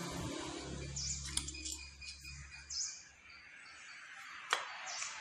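Light clicks and clinks of brush cutter engine parts being handled on a workbench, with one sharp click about four and a half seconds in, over a low hum that stops about halfway.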